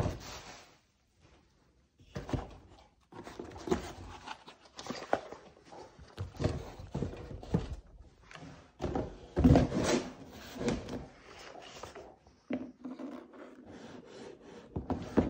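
Handling of a cardboard rifle box and the air rifle in it: irregular rubbing, scraping and dull thunks as the rifle is lifted out and the box is moved. There is a brief quiet spell about a second in, and the loudest knocks come near the middle.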